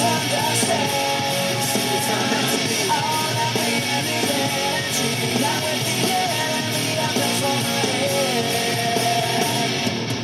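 Loud nu-metal rock song playing: distorted electric guitars over drums, with a melodic line held and sliding above them.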